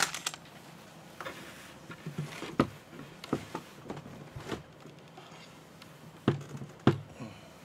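Handling noise: a few scattered sharp knocks and taps as things on and around a desk are moved, with quiet room noise between them.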